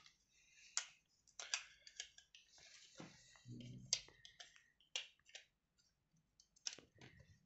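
Faint, irregular clicks and rustles of electrical cables and a plug adapter being handled.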